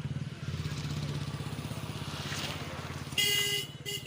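A diesel engine running with an even, steady throb. About three seconds in, a loud high-pitched tone cuts in over it and sounds in short blasts.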